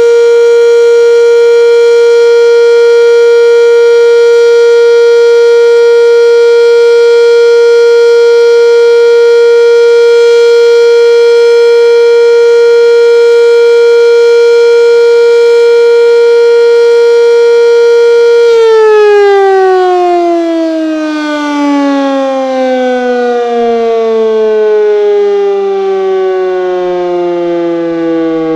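Sentry 10V outdoor warning siren sounding a steady full-alert tone; about 18 seconds in, its pitch starts to fall steadily as the siren winds down.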